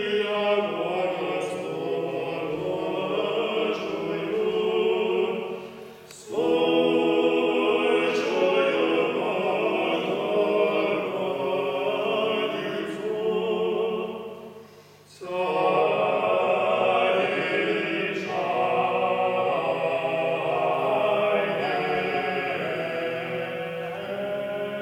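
Monks' choir singing Russian Orthodox chant, several voices holding long chords together. The singing breaks briefly between phrases about six seconds in and again about fifteen seconds in.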